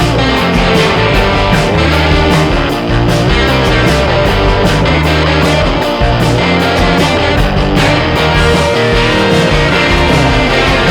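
Background music: a rock track led by guitar, with a steady bass and drum beat.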